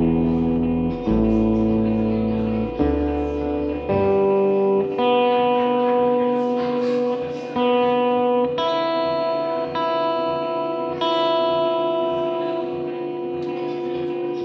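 Electric guitar played through effects pedals: slow, sustained notes and chords, changing about once a second at first, then held longer and ringing over one another from about halfway through.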